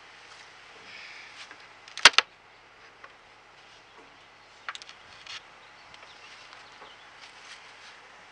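Metal-clad outer cover of a wooden beehive being pried up and lifted off: two sharp knocks about two seconds in, then a few lighter clicks and taps around five seconds.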